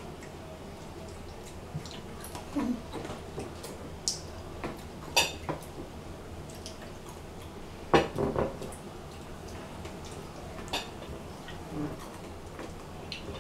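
Scattered light clinks and taps of spoons and hands against plates as pomegranate seeds are picked out of the fruit halves, with a louder knock about eight seconds in.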